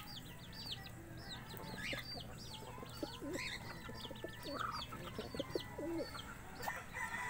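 Backyard chickens calling: a steady run of short, high peeps several times a second, with lower clucking calls mixed in between about three and six seconds in.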